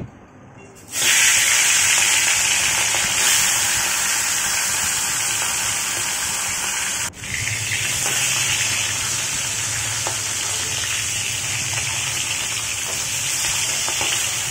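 Rohu fish heads frying in hot oil in a kadai: a loud, steady sizzle that starts about a second in and cuts out for a moment about seven seconds in.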